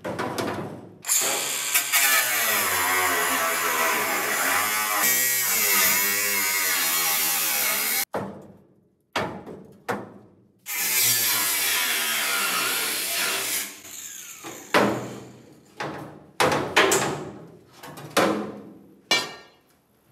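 Angle grinder with a cut-off wheel cutting through rusted sheet steel of a 1965 VW Beetle's body, cutting out a brace. It runs in two long runs of several seconds, with its pitch dipping and recovering as the wheel bites, then in several short, broken bursts.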